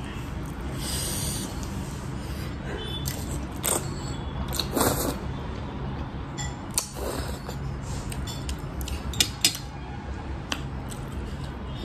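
Eating sounds: a metal fork clinks and scrapes against a ceramic plate in scattered sharp ticks while ramen noodles are twirled up and slurped. A steady low hum runs underneath.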